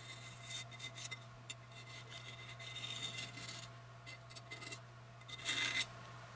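Rubbing and scraping on paper towel sheets: a run of short, scratchy strokes, with a longer, louder one near the end.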